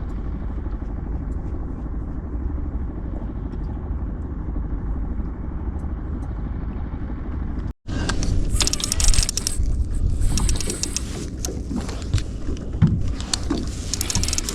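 Steady low rumble of a running boat engine. About eight seconds in it cuts off abruptly and gives way to irregular clicking and rattling handling noises over the rumble.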